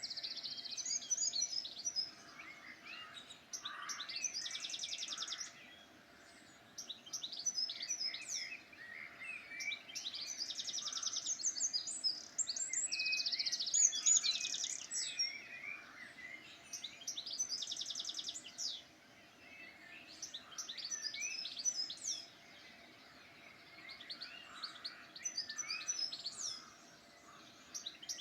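Songbirds singing in short bursts every few seconds, each phrase made of quick trills and sweeping high notes.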